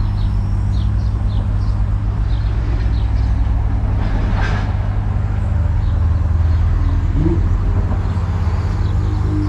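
Takeuchi TB216 mini excavator's diesel engine running steadily, with a short rising whine about seven seconds in. Birds chirp faintly over it.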